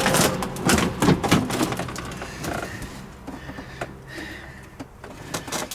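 Knocks and clicks of an RV electrical panel being handled and pried at: a cluster of sharp knocks in the first second and a half, then fainter scattered clicks.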